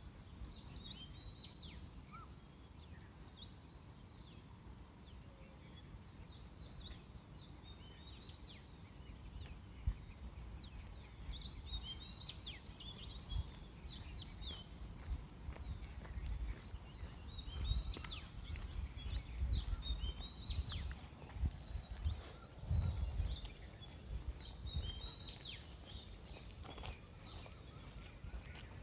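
Small birds chirping: many short, high calls scattered throughout, busier in the second half, over a low, uneven rumble.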